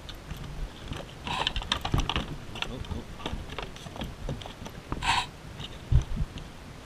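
Handling noise on a plastic fishing kayak: scattered clicks and knocks as a fishing rod and line are worked with a hooked spotted gar lying on the deck. Two short rushes of noise come about one and five seconds in, and a heavy thump about six seconds in.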